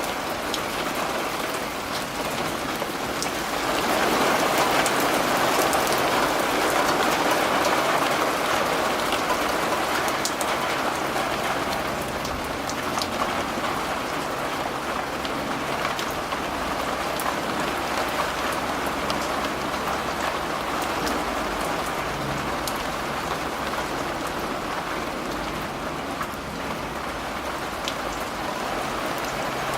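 Steady heavy rain with hail, many sharp taps of hailstones striking a surface over the hiss of the downpour. It gets heavier about four seconds in, then eases slightly after about ten seconds.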